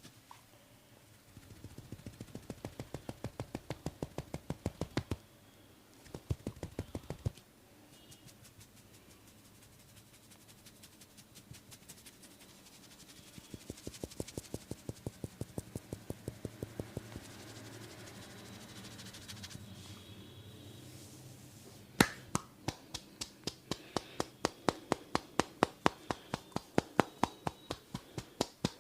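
Percussive hand massage: rapid, rhythmic slaps and taps of a barber's hands on the body, in bursts of a few seconds with short pauses between them. About three quarters of the way through, one sharp, loudest strike opens a long, steady run of slaps.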